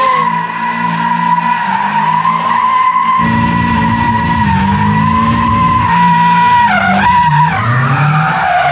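Rear tyres squealing steadily as a 1980 VW Rabbit pickup with a Mazda Miata four-cylinder drivetrain slides round in smoky donuts, the engine held at high revs. About three seconds in, the sound is heard from inside the open cab, with more engine. Near the end the squeal breaks briefly and the revs dip and climb again.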